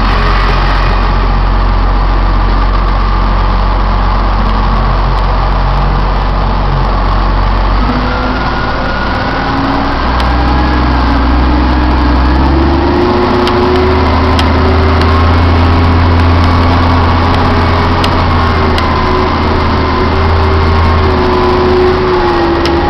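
Rock truck's diesel engine heard from inside the cab as the truck pulls away and drives. The engine note steps up several times and rises and falls as it gathers speed.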